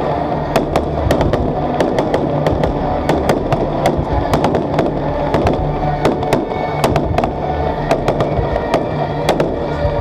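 Aerial fireworks bursting: a rapid, irregular run of sharp bangs and crackles, several a second, from gold crackling shells.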